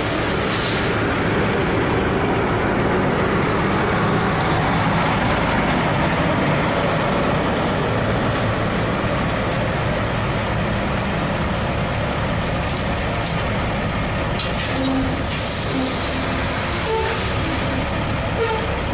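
Heavy diesel engines of an excavator and a dump truck running steadily while the excavator loads the truck. A rush of loose material pours from the bucket into the steel dump bed just after the start and again about fifteen seconds in.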